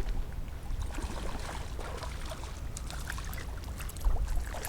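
Light water trickling and splashing around a kayak, with scattered small clicks and knocks over a low rumble.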